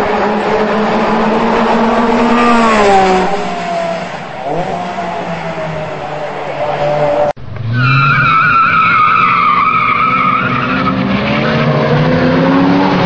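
A car engine running, its pitch dropping about three seconds in; then, after an abrupt cut, tyres squealing with a wavering high tone over the engine.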